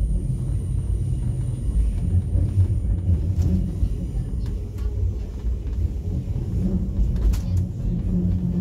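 A Stockholm metro train running, heard from inside the carriage: a steady low rumble of wheels on rails, with a couple of sharp clicks about three and a half and seven seconds in.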